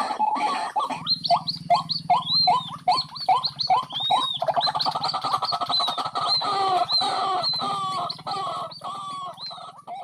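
White-breasted waterhens calling: rapid repeated 'ruak-ruak' notes, several a second and overlapping, with a low steady hum underneath from about a second in.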